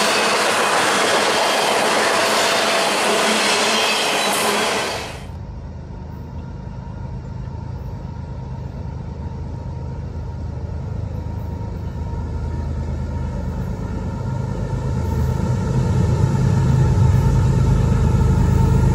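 Double-stack container cars rolling past on steel rails, a loud steady rush with a thin squeal, which cuts off about five seconds in. Then the low rumble of an approaching CSX diesel freight locomotive, growing steadily louder.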